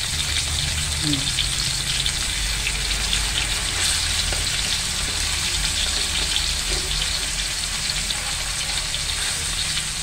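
Pork slices frying in hot oil in a metal wok: a steady sizzle with fine crackling, over a low steady hum.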